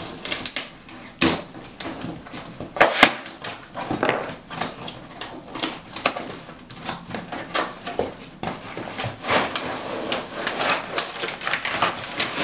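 Knife slitting tape on a cardboard shipping box, then the cardboard and paper wrapping being pulled open and handled: a continuous run of irregular scrapes, rips and rustles.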